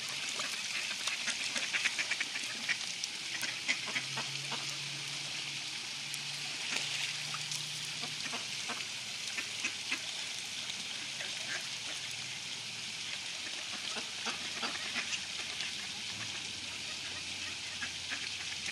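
Mallard ducks quacking over a steady trickle of running water.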